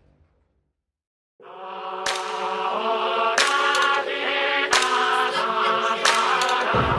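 Intro music: a sustained, choir-like chanting chord enters after about a second and a half of silence. Heavy percussive hits join it about every second and a third.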